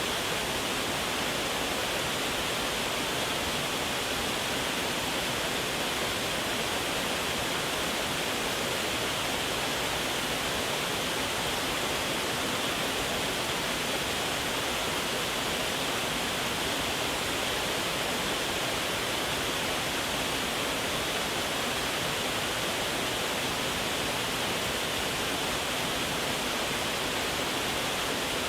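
Waterfall: a steady, unbroken rush of falling water, an even hiss that does not change.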